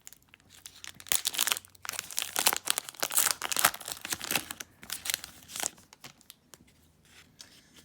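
Plastic trading-card pack wrapper crinkling as it is torn open and handled. The crackling runs in dense bursts from about a second in and dies away near six seconds.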